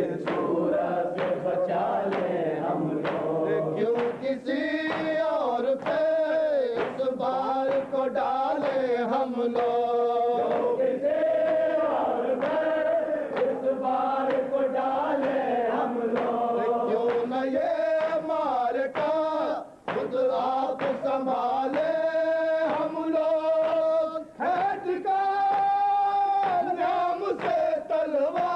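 Men's voices chanting a Shia noha, a mourning lament, in long held and wavering sung lines.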